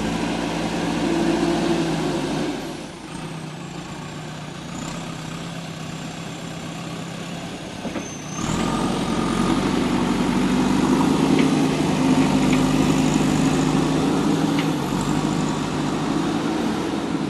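Diesel engine of a JCB backhoe loader running under load. It drops quieter for about five seconds, then comes back up abruptly and runs louder again.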